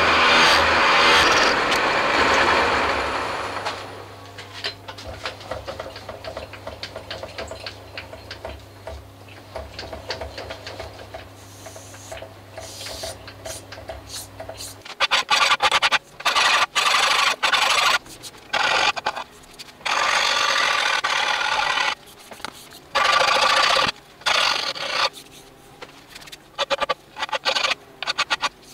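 Milling machine fly cutter finishing its pass across the vice ways of a Rapidor Manchester power hacksaw, with loud cutting noise for the first few seconds. The mill then hums steadily without cutting until it stops about halfway through. After that, a hand-held tool is rubbed along the machined edge of the ways in a run of loud scraping strokes, some long and some short.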